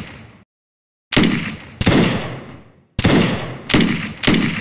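Gunshots: five sharp shots at uneven intervals, each with a long echoing decay, after the tail of an earlier shot fades at the start.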